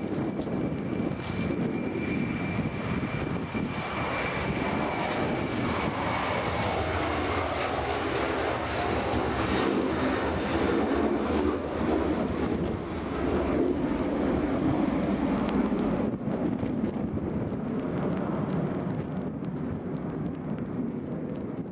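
Boeing 737-800's twin CFM56-7B turbofan engines at takeoff power as the jet rolls down the runway, lifts off and climbs away. A high whine runs through the first several seconds, and the noise eases near the end as the aircraft climbs away.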